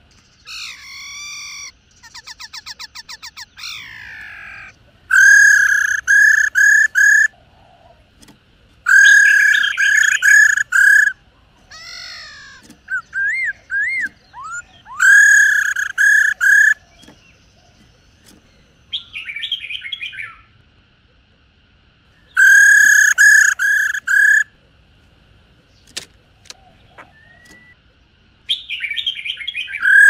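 Black-throated laughingthrush calling: loud bursts of four or five ringing notes come back every few seconds. Between the bursts are shorter whistled glides and a fast trill.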